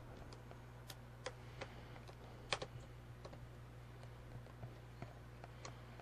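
Scattered light clicks of a small screwdriver backing a tiny screw out of a laptop's plastic base, with one sharper click about two and a half seconds in, over a low steady hum.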